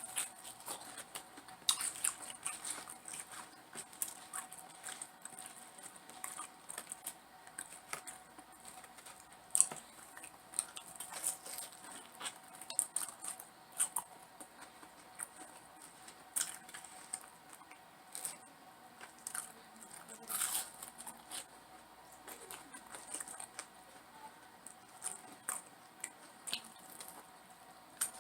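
Close-miked eating of battered fried chicken: irregular crisp crunches, tearing bites and wet chewing, with a faint steady hum underneath.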